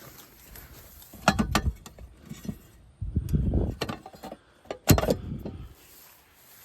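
Mechanical handling noise: a few sharp clicks and knocks, the loudest near the end, with low rumbling in between, as of a metal panel or tools being handled at an outdoor AC unit.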